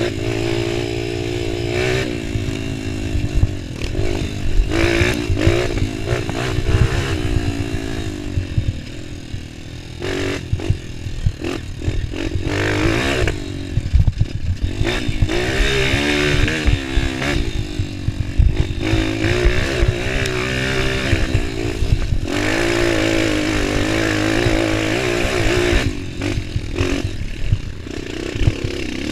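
Honda CRF230 dirt bike's single-cylinder four-stroke engine being ridden hard, revving up and dropping back again and again as the throttle is worked. Short clattering knocks from the bike over rough ground run through it.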